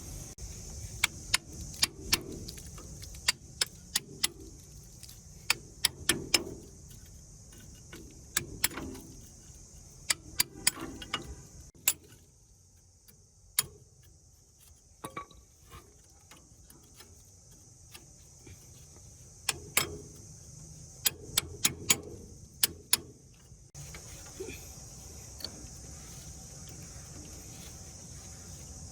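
Metal parts and hand tools clinking and tapping against each other in quick clusters of sharp clicks, some ringing briefly, during work on a rusty concrete mixer gearbox. A steady high hiss of insects continues underneath.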